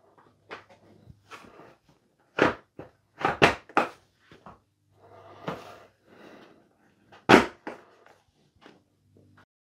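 Hands handling small objects on a desk: a scatter of sharp knocks and clicks, the loudest a little over two seconds in, around three and a half seconds, and a little over seven seconds in, with faint rustling between.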